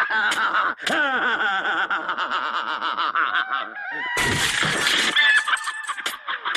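A cartoon crash effect of a tractor smashing through a wooden fence: a sudden loud splintering burst about four seconds in. Before it, the Wolf's voice whoops and laughs over music. After it, hens squawk as they scatter.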